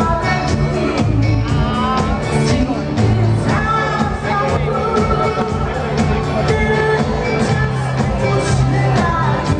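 Live band playing a pop-rock song: sung vocals over electric guitars, keyboards and a steady drum beat.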